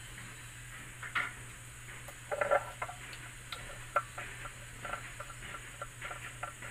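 Scattered soft clicks and ticks, irregular and a few at a time, from a kitten licking liquid vitamins off a countertop while a plastic oral syringe is filled from a small bottle and held out to it. A faint steady hum runs underneath.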